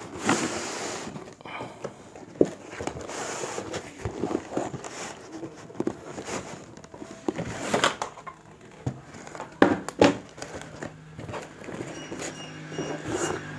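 Long cardboard air rifle box being handled: the printed outer sleeve slides off with cardboard scraping and rustling, and there are several sharp knocks as the box is put down on the wooden table.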